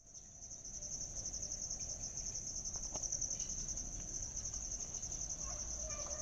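Crickets chirping in a steady, rapid pulsing trill.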